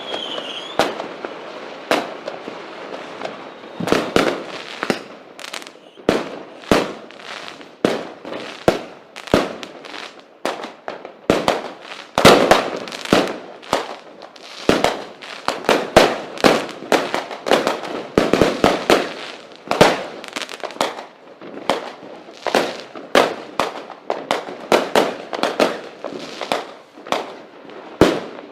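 Fireworks going off: a dense, irregular run of bangs, often several a second, over continuous crackling. A short falling whistle sounds at the very start.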